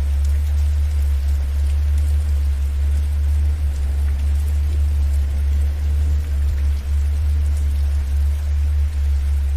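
A steady low drone tone for theta-wave relaxation, the loudest part, layered under a light patter of rain and dripping drops.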